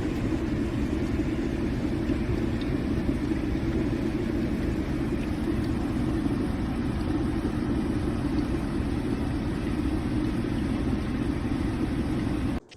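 AZEUS 1.8 L glass electric kettle heating water toward the boil: a steady, loud rumbling noise, heaviest in the low range, that cuts off abruptly just before the end.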